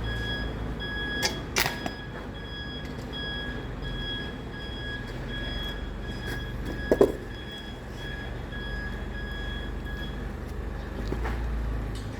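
Heavy machinery engine running steadily, with a repeating electronic beep that stops about ten seconds in and a few sharp knocks.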